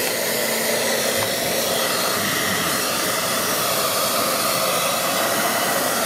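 Pro Moser 3000 W hair dryer running on its first fan level, a steady rush of air with a faint motor whine.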